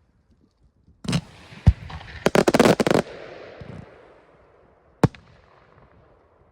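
Aerial fireworks bursting: a loud bang about a second in, another sharp bang, then a rapid volley of bangs with crackle that fades out. A single bang follows near the end.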